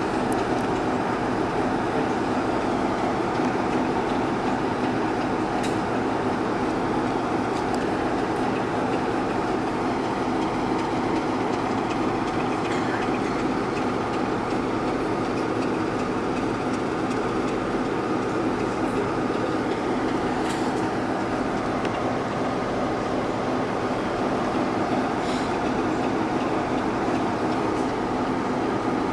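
Diesel locomotive engine running steadily, heard from a coach of its train, with a few faint clicks.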